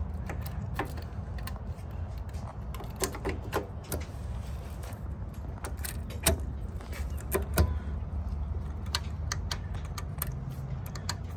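Scattered metallic clinks and taps of hand tools and parts being handled on a diesel engine's fuel injection pump and governor, over a steady low hum.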